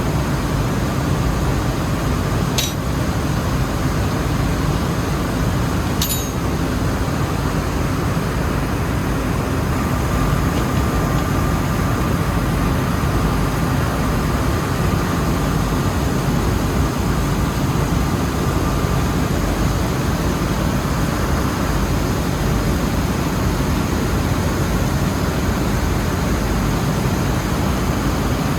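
Rice mill machinery running steadily, a loud even drone with a faint high whine. Two sharp clicks a few seconds in.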